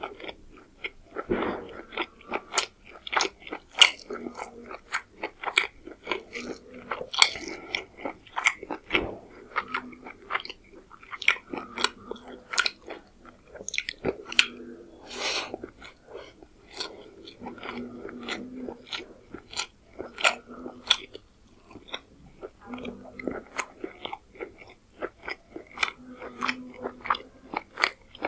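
Close-miked chewing of rice and chicken curry eaten by hand: wet mouth smacks and sharp clicks, several a second, with no talking.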